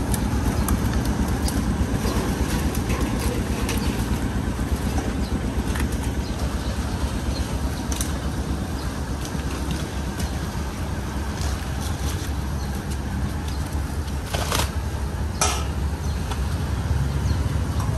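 Outdoor street-market ambience: a steady low rumble of vehicle engines and traffic. Two sharp knocks come close together near the end.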